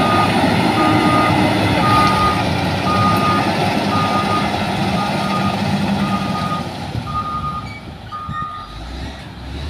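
Caterpillar 120K motor grader in reverse, its backup alarm beeping about once every 0.8 seconds over the running diesel engine. The engine noise drops off and the beeping stops near the end.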